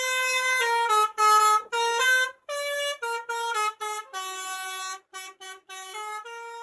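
Multi-tone musical coach horn (Indonesian 'telolet' horn) playing a quick tune of stepped notes in several short phrases with brief breaks between them. It is quieter in the second half.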